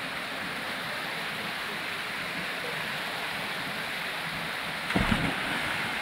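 A small waterfall pouring over boulders into a rocky pool, a steady rush of falling water. About five seconds in there is a brief low thump.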